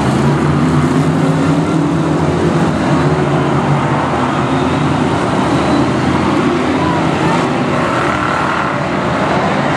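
A pack of BriscA F1 stock cars racing, their V8 engines running hard together, engine pitch rising and falling as they accelerate and lift around the oval.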